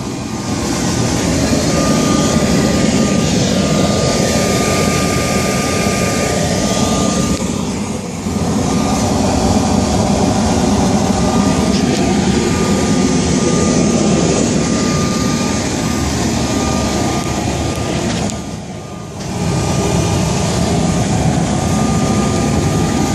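Forced-air propane forge burner running with its blower: a loud, steady rush of flame and air with a thin, steady high whine through it, dipping briefly twice.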